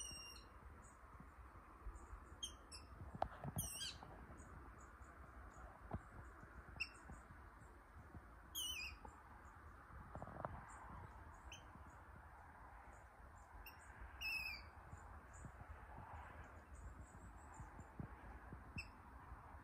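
Water rail calling: short, high, squeaky calls at irregular intervals, several falling in pitch. A single knock about three seconds in.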